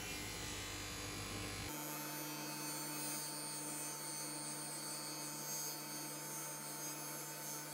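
Table saw motor running with the blade spinning freely, not cutting. A low rumble fills the first couple of seconds, then it settles into a steady electric hum.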